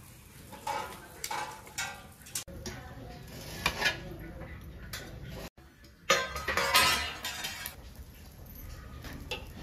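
Metal kitchenware at work: a steel spatula clinking and scraping on a flat iron tawa as flatbreads are cooked and turned, with steel plates knocking, in short scattered clinks, the busiest stretch a little past the middle.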